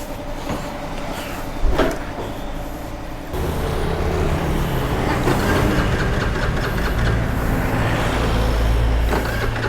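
A motor vehicle engine running close by, with a sharp knock about two seconds in; about three seconds in the engine sound suddenly gets louder and fuller and stays that way.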